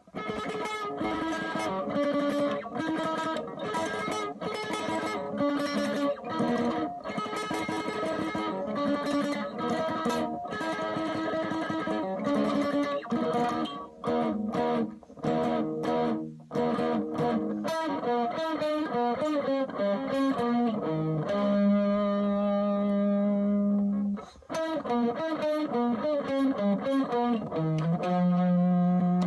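Electric guitar through an effects unit playing a pop song's sung melody as music. The first half is quick, rhythmic chord stabs. The second half is a single melodic line with several long held notes.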